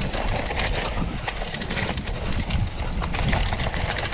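Mountain bike rolling over a rough dirt trail: tyres and frame rattling with a dense run of small knocks over bumps, and wind buffeting the microphone.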